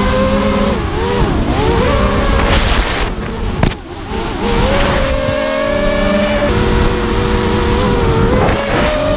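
The brushless motors and 5-inch propellers of a 250-size FPV racing quadcopter whine as it flies, over a rushing wind noise. The pitch rises and falls with the throttle. A little under four seconds in the sound dips briefly around one sharp click, then comes back.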